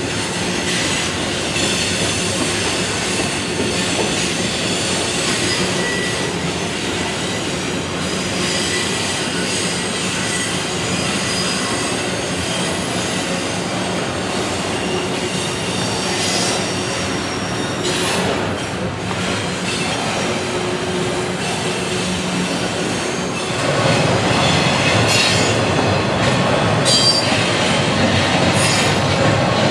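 Double-stack intermodal container freight train rolling past: a steady rumble of steel wheels on rail, with thin high-pitched wheel squeal above it. About three-quarters of the way through it becomes louder and closer.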